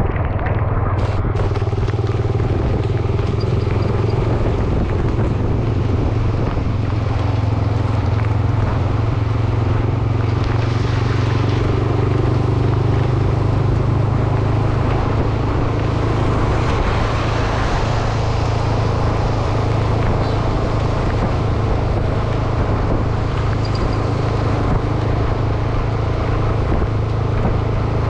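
Motorcycle engine running steadily at a constant pace while riding, with wind and road hiss over it. The hiss swells briefly about ten seconds in and again about seventeen seconds in.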